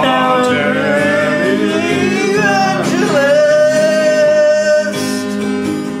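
A song: a voice singing a long drawn-out note over strummed acoustic guitar. The note bends, then holds steady, and ends about five seconds in.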